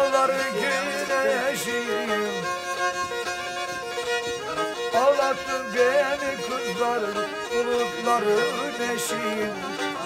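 Black Sea kemençe, a small upright three-stringed fiddle, bowed in a traditional folk melody, with a man singing along.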